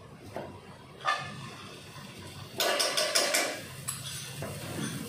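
Metal spoon knocking and scraping against a wok and bowl as curry paste goes into a little palm oil: one sharp knock about a second in, then a quick cluster of clattering knocks around the three-second mark.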